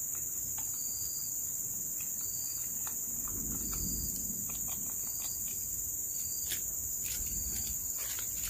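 Steady high-pitched chorus of forest insects, with faint light clicks of a spoon stirring in a metal cup.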